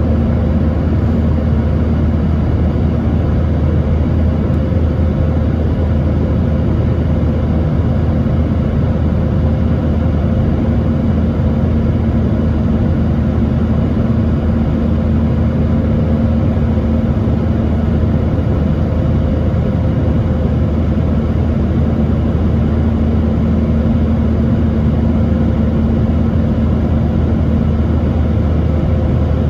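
Steady cabin noise heard from a passenger seat of a Boeing 737-900ER: a loud, even drone of its CFM56 jet engines and rushing air, with a low rumble under a couple of steady humming tones.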